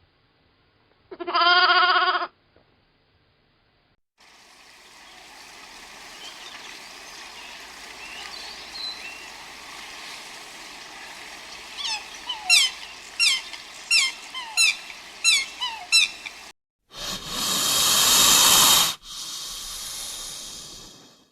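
A single bleat. Then a bird calls in a quick run of about eight short falling chirps over a soft outdoor hiss, followed near the end by a loud rush of noise lasting about two seconds, which then drops to a quieter hiss.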